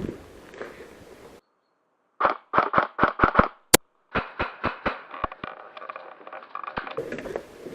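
Airsoft gun firing a string of about a dozen single shots, three or four a second, with one much sharper crack among them. The shots are set against dead silence, with no field background behind them.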